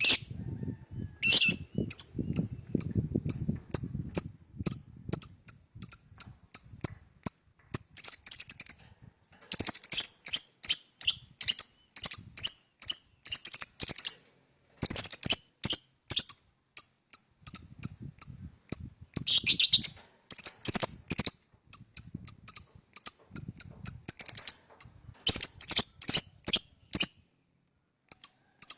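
Fischer's lovebird chirping in fast trains of short, shrill, high-pitched chirps, several a second, broken by brief pauses.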